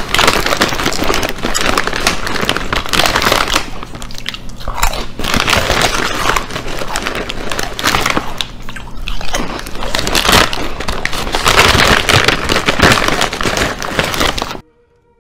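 A man chewing and crunching food loudly, close to the microphone, with a plastic snack bag crinkling as his hand works in it. There are brief lulls about four and nine seconds in, and the sound cuts off abruptly just before the end.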